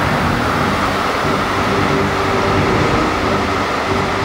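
Freight train of tank wagons rolling past, a steady noise of wheels on rails with a faint steady whine over it.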